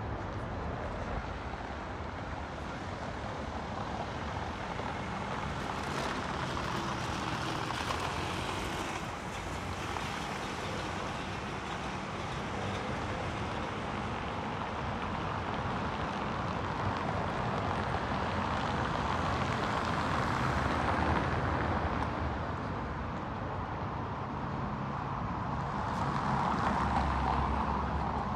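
City street traffic: cars passing on cobblestone roadway, a steady rumble of tyres and engines that swells and fades several times, loudest near the end.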